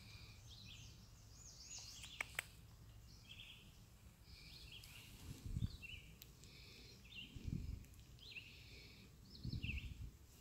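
Faint outdoor birdsong: many short, varied chirps and warbles from birds in the background. A few soft low thumps come in about halfway through and near the end.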